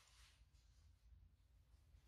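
Near silence: faint low room hum.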